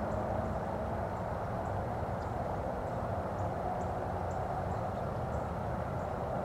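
Steady outdoor background rumble with no clear single source, and faint high ticks or chirps scattered through it.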